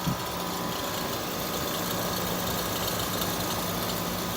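ICP Commercial Comfort central air conditioner condensing unit running with a rattle over a steady hum; the rattle may come from its fan motor.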